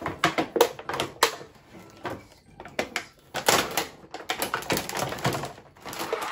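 Clear plastic packaging and small plastic parts handled and pulled out of a box: irregular crackles and clicks.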